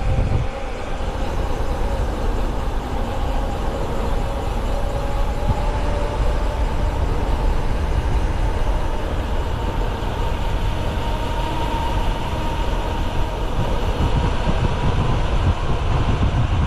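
Wind rushing over the camera microphone and tyres rolling on asphalt as a mountain bike coasts down a paved road at speed, with a faint steady hum that slowly rises in pitch.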